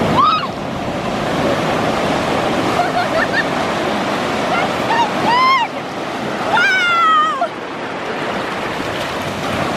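Ocean surf breaking and washing in at the shoreline, with short high-pitched shrieks and laughter from kids in the whitewater a few times over it.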